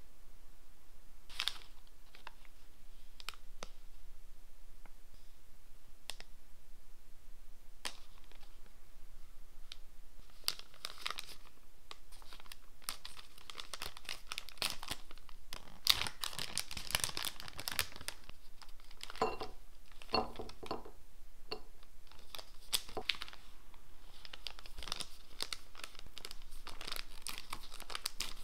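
Hands crinkling and tearing open plastic candy pouches: a few light handling clicks for the first ten seconds or so, then dense crinkling and tearing of the packaging for the rest.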